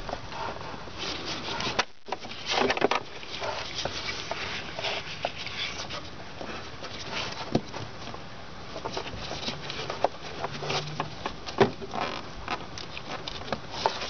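Irregular small clicks, taps and scraping from a nylon pry bar and gloved hands working at the accelerator cable's plastic fitting, trying to pry the stuck cable free.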